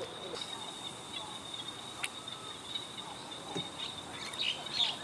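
Birds chirping and calling near the end over a steady high-pitched whine, with a single sharp click about two seconds in.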